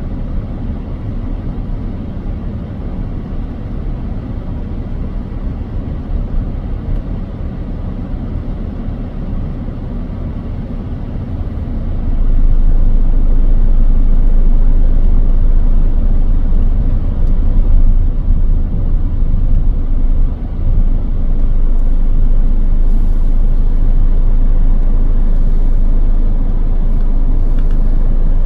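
Wind buffeting the microphone as a heavy, fluttering low rumble, growing much stronger about twelve seconds in and staying strong.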